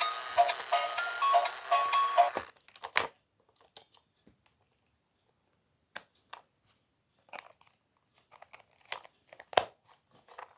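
Bump-and-go toy car's electronic beeping tune, a short repeating run of notes, cutting off suddenly about two and a half seconds in. Scattered clicks and knocks follow, the loudest near the end.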